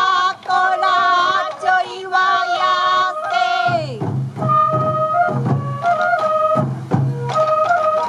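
Sansa odori festival music: a sung line with strong vibrato over a bamboo flute and sansa drum beats. The voice ends in a downward glide about halfway through, after which the flute melody and regular drum strokes carry on.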